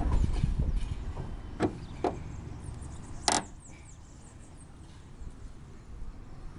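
Pipe wrench knocking and clicking against a loose roof-fixing screw on the ridge cap as it is gripped and turned. There are a few sharp knocks, the loudest about three seconds in with a brief metallic ring.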